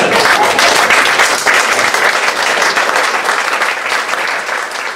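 Audience applauding: many hands clapping in a dense, steady patter that eases off a little near the end.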